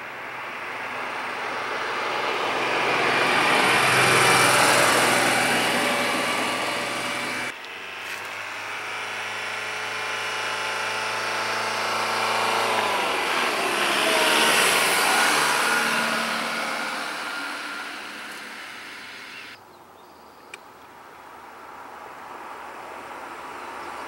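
Cars driving past one at a time at 25 mph. First a 1986 Porsche 911's air-cooled flat-six swells and fades, peaking at 70.7 dB at 30 feet. After a sudden cut, a 2002 VW Jetta's four-cylinder diesel passes, peaking at 66.8 dB, its engine note dropping in pitch as it goes by. Near the end a third car, a 2009 Corvette, is heard approaching.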